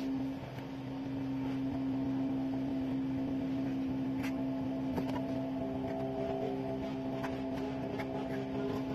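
A steady mechanical hum made of several constant tones, with a few light clicks and taps from about four seconds in.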